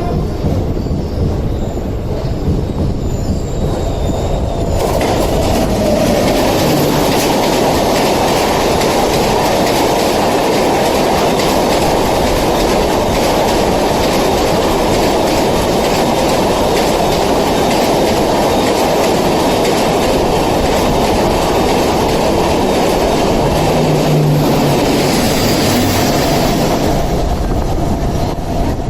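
Train passing through a station at speed: a loud, steady rumble with wheels clattering over rail joints and some wheel squeal, growing louder about five seconds in.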